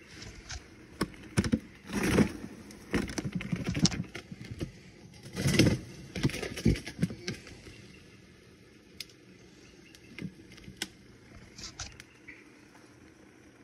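Drink cans rolling and knocking inside a plastic Esky cooler as it is rocked back and forth, with liquid nitrogen sloshing around them. The rocking stops about seven or eight seconds in, leaving only a few faint clicks.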